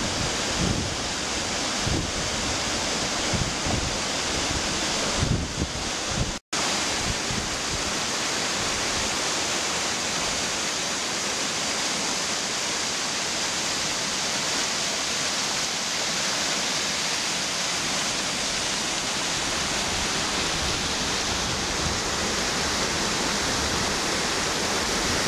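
Mountain waterfall hung with ice, its water rushing in a steady, even roar. Wind buffets the microphone with gusty low rumble for the first six seconds, and the sound drops out for an instant at an edit a little after six seconds in.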